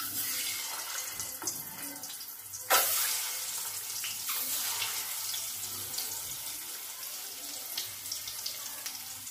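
Whole boiled eggs frying in hot oil in an aluminium kadai: a steady sizzle that starts the moment the first egg goes in, with a louder spatter about three seconds in as more eggs are added.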